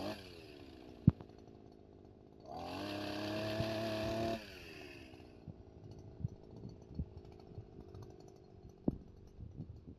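Small brush cutter engine driving a chainsaw attachment. It idles, revs up hard for about two seconds near the middle, then drops back to idle. A sharp knock comes about a second in and another near the end.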